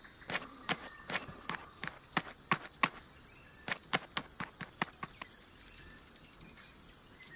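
Footstep sound effect for a bird walking: a run of about eight light taps, about three a second, then after a short pause about seven more.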